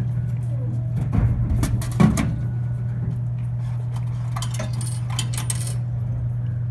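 Vending machine dispensing a bottle of water: a clatter of knocks about a second in, with the loudest thud at about two seconds as the bottle drops, then coins clinking into the change return, 50 cents in change, from about four and a half to six seconds. A steady low hum runs underneath.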